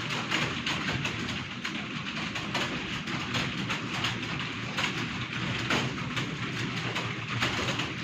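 Many computer keyboards being typed on at once in a timed typing test: a dense, steady clatter of overlapping key clicks.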